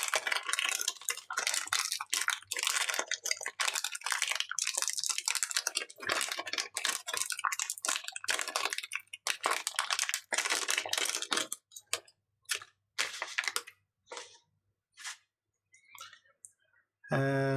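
Plastic packaging crinkling and rustling as it is handled and opened. The rustling is dense for about eleven seconds, then thins to a few scattered rustles and small clicks.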